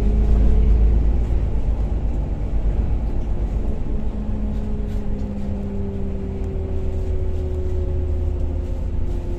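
Inside a Solaris Urbino 8.9 LE city bus on the move: a steady low rumble of engine and road, with a drivetrain whine that slowly drops in pitch over the second half as the bus slows.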